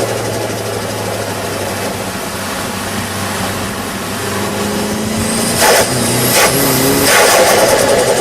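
Turbocharged SR20DET four-cylinder idling, then blipped a couple of times in the second half with a rising turbo whistle. Each throttle lift brings sharp fluttering bursts of compressor surge: boost pressure escaping back through the spinning compressor wheel as the throttle plate snaps shut.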